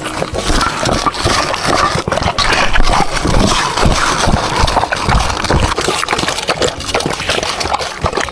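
A dog eating from its bowl right at the microphone: a dense run of wet chewing, lapping and slurping, with the dog's muzzle and fur brushing against the phone.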